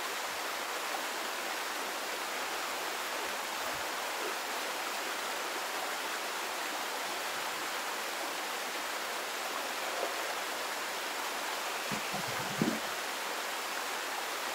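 Spring water pouring steadily from a pipe into a plastic water jug: an even splashing rush. There are a couple of faint knocks near the end.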